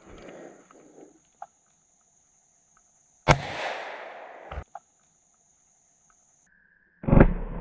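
A scoped rifle fires about three seconds in, a sharp crack that rings on through the trees for over a second, followed by two short knocks. A second loud crack comes near the end.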